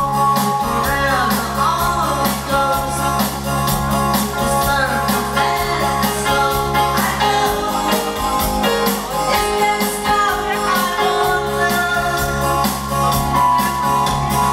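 Rock song with a singer over guitar, bass and a steady drum beat.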